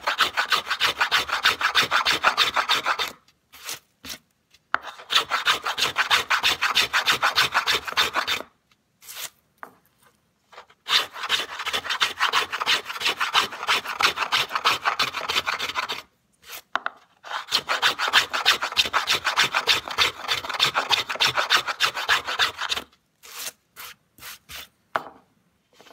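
Small boxwood luthier's plane cutting shavings from a wooden board in rapid back-and-forth strokes. The strokes come in four runs of a few seconds each, broken by short pauses, with a few scattered strokes near the end.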